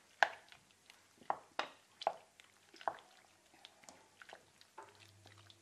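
A utensil stirring fried potato pieces into beaten egg in a glass bowl: wet squishing with irregular light knocks and clicks against the glass.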